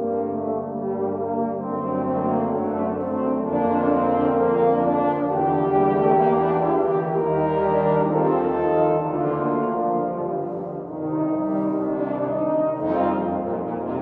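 A trombone ensemble with a featured bass trombone plays held, full chords, the harmony moving every second or two.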